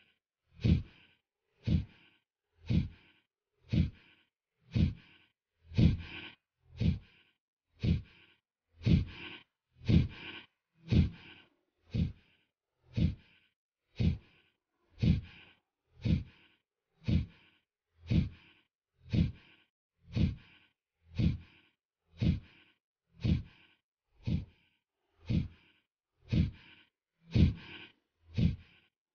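Kapalbhati pranayama breathing strokes: sharp, forceful exhalations through the nose, each a short puff, in a steady rhythm of about one a second.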